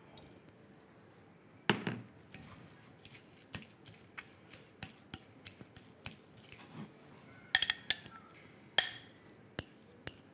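A metal fork mashing boiled potato in a glass mixing bowl, clinking and scraping against the glass in a run of irregular light taps. There is a louder knock about two seconds in and several sharper clinks near the end.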